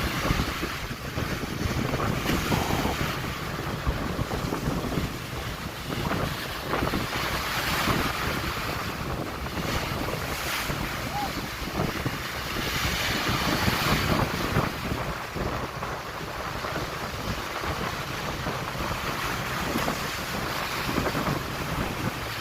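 Wind buffeting the microphone over the steady rush of sea water.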